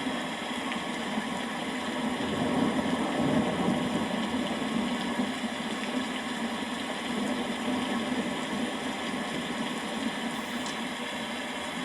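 Steady rain, with a low rumble swelling briefly about three seconds in.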